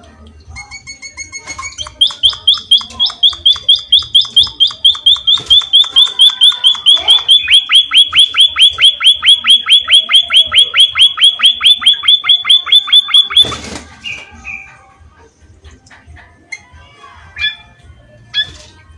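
A munia (emprit) calling: a long, rapid run of repeated high, sharp notes, several a second, for about eleven seconds. It stops suddenly with a short burst of noise, and a few scattered chirps follow near the end.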